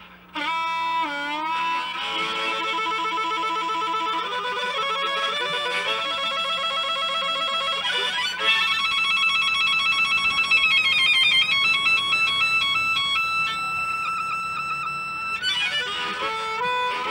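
Solo harmonica cupped in the hands and played into a microphone: chords and bent notes, a wavering passage about ten seconds in, then a long held note before a new phrase starts near the end.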